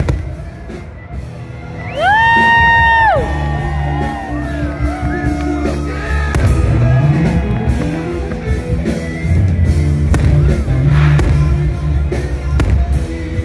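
Rock music with a steady bass line and a long held high note about two seconds in.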